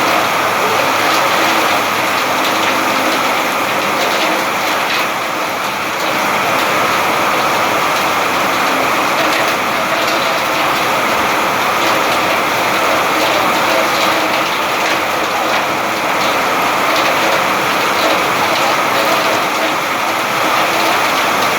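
Steady rain falling: an even hiss with faint scattered drop ticks and no breaks.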